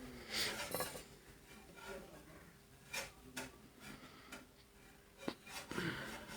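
Handling clicks and knocks of a small plastic remote tester's casing and parts being fitted back together, a handful of separate clicks with quiet between them.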